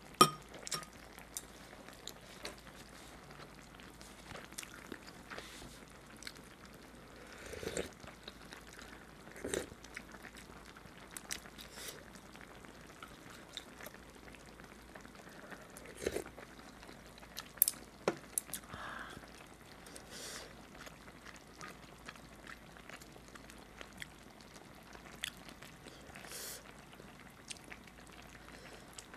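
Mukbang eating sounds: chewing and sipping spoonfuls of spicy braised mackerel and radish stew, with utensils clicking now and then against the pot and spoon. A sharp click just after the start is the loudest sound.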